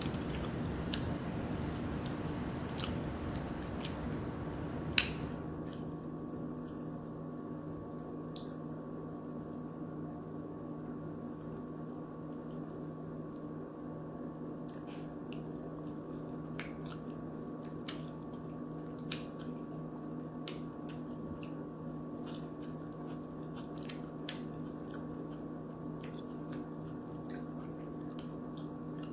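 Close-up eating sounds: a person chewing soft food, with wet mouth clicks and the scattered small clicks of a fork against a plate, over a steady hum. One sharp click about five seconds in stands out above the rest.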